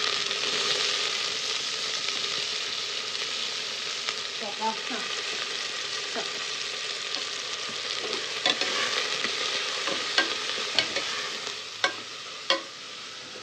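Sliced onions sizzling in hot oil in an aluminium pressure cooker, the sizzle slowly dying down as they start to cook. From about eight seconds in, a metal spoon stirs them, with sharp clicks against the pot.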